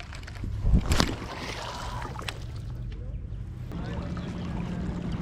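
Water sloshing around a fishing kayak, with a sharp knock on the hull about a second in; a steady low background music tone fades in about two-thirds of the way through.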